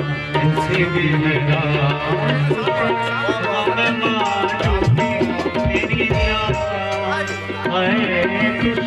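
Live folk song: a man sings over a harmonium's held chords, with tabla strokes keeping time. A few deep bass-drum tabla strokes sound near the middle.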